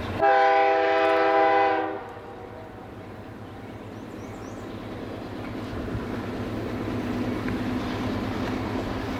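Freight locomotive air horn sounding one long chord of several notes for about two seconds, starting just after the beginning. After it stops, the low rumble of the diesel freight train grows steadily louder.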